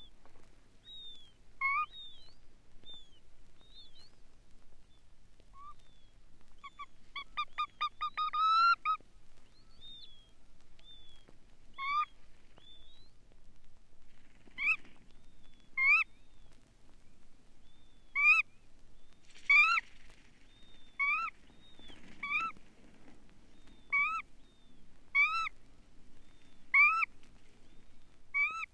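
Red knot calls: short nasal notes that hook upward, repeated every second or so through the second half. About eight seconds in there is a quick run of notes rising in pitch, and thin higher whistled notes come in the first part.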